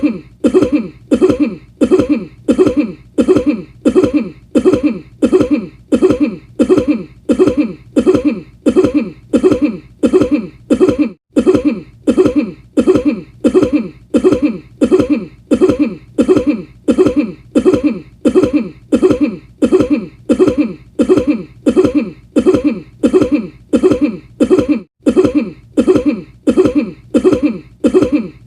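A person's short cough repeated over and over in a steady loop, about two coughs a second, every cough identical.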